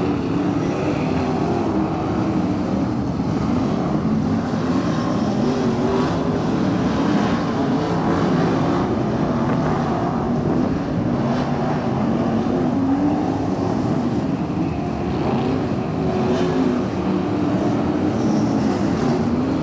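Several IMCA Modified dirt-track race cars' V8 engines running at speed together, an overlapping engine drone whose pitch rises and falls as the cars work around the track.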